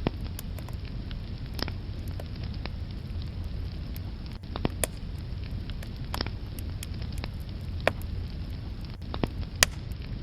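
Wood fire burning in a fireplace: a steady low rush of flames with irregular sharp crackles and pops from the logs, the loudest pop near the end.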